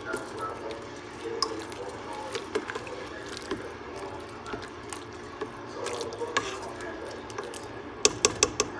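A spoon stirring a tomato and corn mixture in a steel pot, with wet stirring sounds and scattered clicks of the spoon against the pot. Near the end comes a quick run of sharp taps, about five a second.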